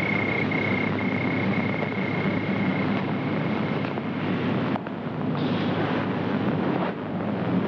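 Night ambience on a film soundtrack: a steady wind-like rushing wash, with a steady high insect trill that fades out about three seconds in.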